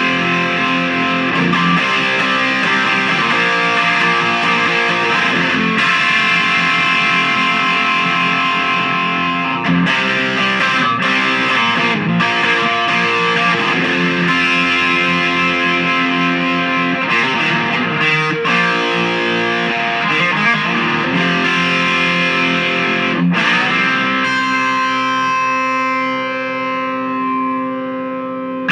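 Overdriven electric guitar played through an LPD Saguaro overdrive pedal into a Marshall MOSFET Lead 100 solid-state amp head, strumming distorted rock riffs and chords. Near the end a final chord is left ringing and slowly fades.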